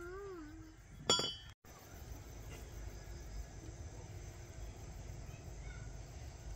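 The tail of a sung melody, then a short high-pitched call about a second in. After a sudden cut comes steady rural outdoor background with a low rumble and a few faint bird chirps.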